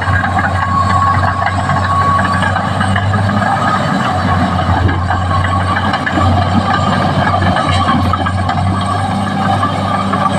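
Caterpillar D6R XL bulldozer's diesel engine running steadily under work, a constant low hum with dense mechanical noise over it.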